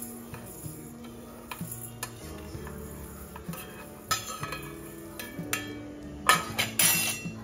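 Dry mustard and fenugreek seeds pattering into a steel mixer-grinder jar as they are pushed off a steel plate with a steel spoon, with small clinks of spoon on plate. Louder metal clattering about six seconds in as the plate and spoon are handled.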